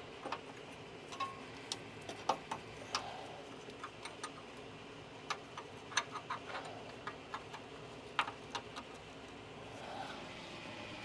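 Scattered light clicks and taps at uneven intervals over a faint steady hiss: hand tools and parts being handled under a truck.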